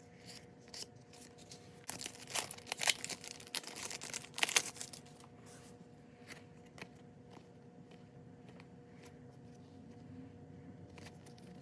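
Basketball trading cards and their plastic wrapping being handled by hand: a spell of crinkling and rustling from about two to five seconds in, then softer taps and slides as cards are flipped through.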